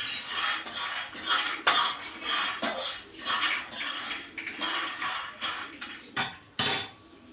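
Dishes and cutlery clattering as they are handled: a string of short knocks and clinks about twice a second, with a louder clatter near the end.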